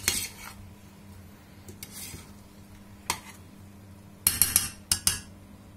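Metal spoon clinking and scraping against a metal pressure-cooker pot while stirring leeks: a few separate knocks, then a quick cluster of them about four seconds in.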